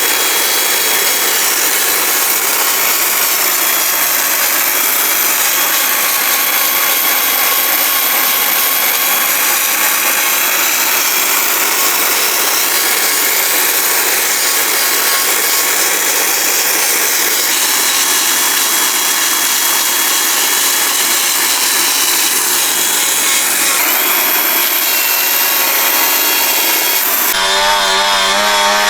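Power tool steadily cutting and shaping a wooden carving, a continuous loud grinding noise. Near the end it changes abruptly to a different, pitched running sound.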